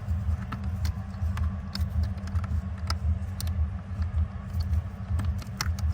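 Light plastic clicks and rattles from wiring connectors being pushed back onto a car's brake light switch, over a low steady rumble.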